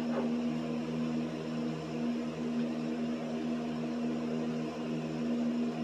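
Steady machine hum with an even hiss underneath, holding one pitch.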